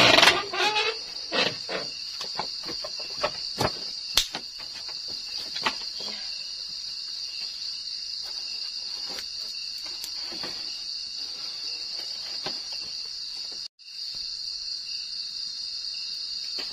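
A steady, high chorus of night insects in the forest. Over it, in the first few seconds, come short knocks and rustles of things being handled on a bamboo-and-wood floor. The sound cuts out for an instant about three-quarters of the way through.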